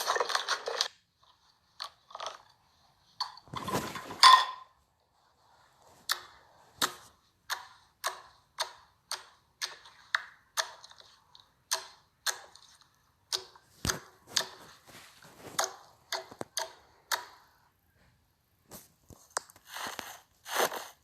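Slime being pressed and squeezed by hand, giving a string of short pops and clicks about one to two a second, with a louder burst about four seconds in.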